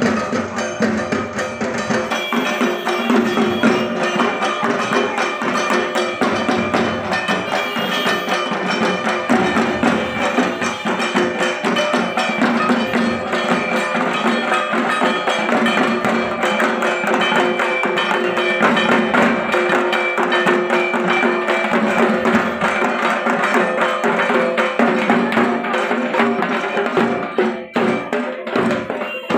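Dhak drums, the large barrel drums of Bengali Durga Puja, beaten with sticks in a fast, continuous rhythm, with sustained ringing tones under the strokes.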